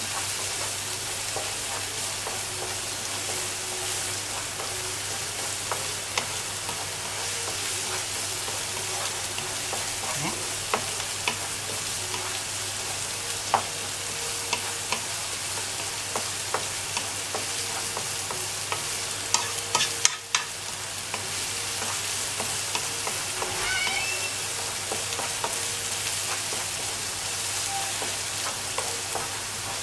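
Chopped onion sizzling in lamb tail fat and a little corn oil in a nonstick pan, stirred with a wooden spoon that scrapes and taps the pan many times. About twenty seconds in, a few louder knocks and a brief dip in the sizzle. The onion is being sautéed lightly to soften, not to brown.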